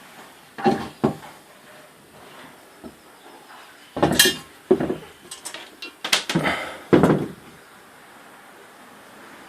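Metal parts clinking and clattering as they are handled and set down: two knocks about a second in, then a busier run of clinks and knocks from about four to seven and a half seconds.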